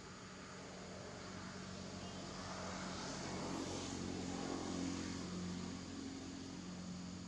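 A distant engine passing by, swelling to a peak about four to five seconds in and then fading, over a steady low hum.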